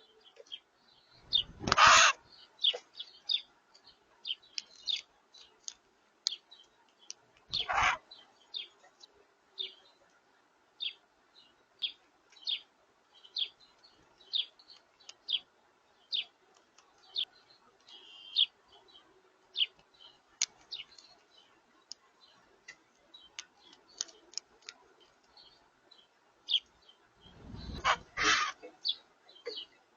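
Small birds chirping: many short, sharp chirps, a few a second, broken by three loud brief rustling bursts, one about two seconds in, one about eight seconds in and one near the end.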